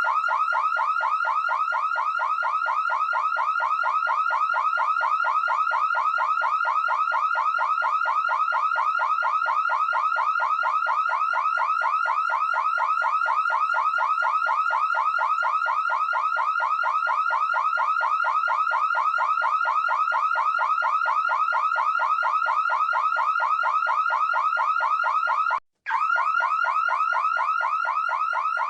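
Electronic alarm siren, car or home, sounding a fast, evenly repeating pitch sweep without pause, with a momentary cut-out near the end.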